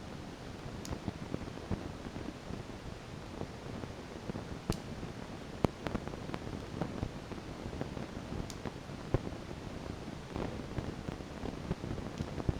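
Small 12 V electric fan motor running with a steady whir, with scattered irregular clicks over it.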